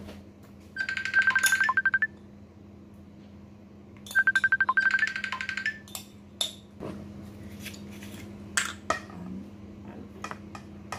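A mobile phone ringing: a rapidly pulsing electronic ringtone in two loud bursts about three seconds apart, each just over a second long. After it, a few scattered clinks and knocks.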